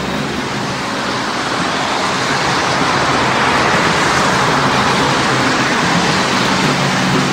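Steady road traffic noise with a low hum underneath. A rush of tyre and engine noise swells about midway and fades again, as a vehicle goes by.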